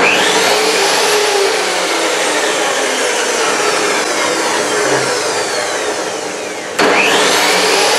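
Craftsman 10-inch table saw motor and blade being tested with a newly fitted power switch. It starts and spins up to speed, then slowly winds down. About seven seconds in it is switched on again and spins back up, showing that the new switch works.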